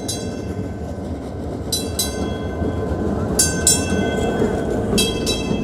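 Vintage electric streetcar rolling past close by on its rails with a steady rumble. Its bell clangs in quick double strikes about every second and a half.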